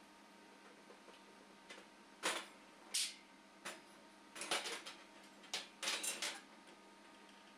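Aluminium pieces being handled and set in place: a run of light clinks and knocks, about eight in all, bunched between two and six seconds in.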